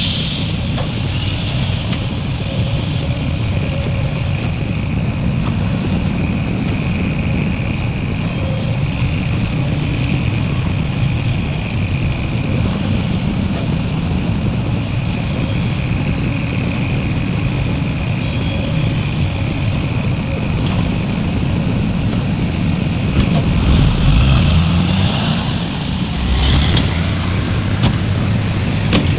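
Heavy diesel earthmoving machinery running steadily, with a thin high whine held over the engine. Near the end the engine swells louder twice, rising in pitch as it takes load.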